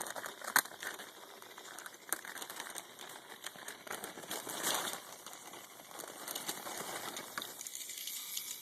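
Rustling and crinkling of things being handled and rummaged through, with scattered clicks and taps; the sharpest click comes about half a second in.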